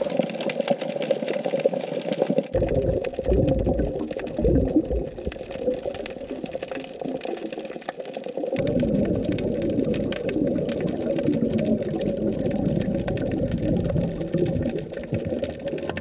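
Muffled underwater sound picked up by a camera below the surface: a wash of water noise over a steady low drone. The low rumble changes abruptly about two and a half and eight and a half seconds in.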